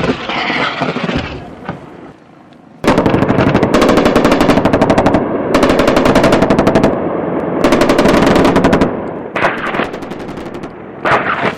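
Close, loud automatic machine-gun fire in several long bursts of a second or two each, with short pauses between them. This is a firefight around a helicopter landing under small-arms fire.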